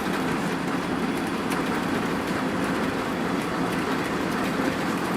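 Steady engine and road noise heard inside a Hino RN285 coach on the move.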